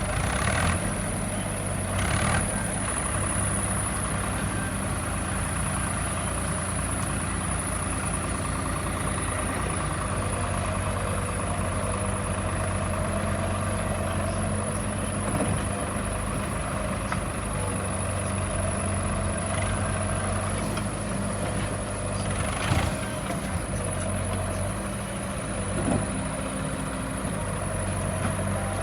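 Backhoe loader's diesel engine running steadily at work, with a few short knocks, the loudest about two-thirds of the way through.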